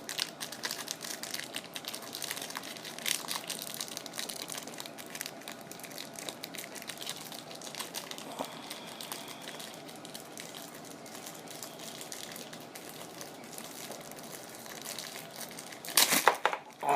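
Plastic packaging crinkling and rustling in the hands as a spare fishing-reel spool is unwrapped, with a louder burst of crinkling near the end.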